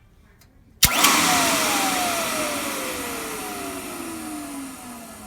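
Silent Master S2 central vacuum power unit switched on with a sharp click about a second in, then its motor gives a loud rush of air with a whine that falls steadily in pitch and fades as it winds down. The motor's carbon brushes are worn and due for replacement.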